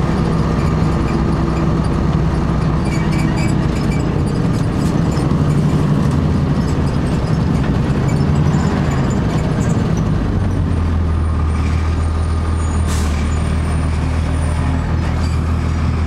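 A Blue Bird CS transit bus's Cummins ISC six-cylinder diesel, running steadily as heard from inside the cabin while the bus drives along. The engine note drops lower about ten seconds in, and there is a brief hiss a few seconds before the end.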